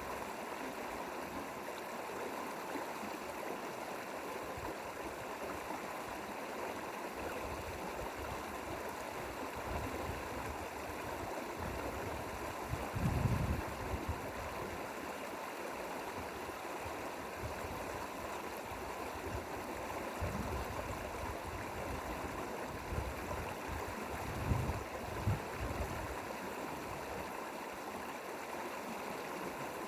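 Mountain valley stream flowing over rocks, a steady rushing and gurgling of water, with a few brief low rumbles about halfway through and again near the end.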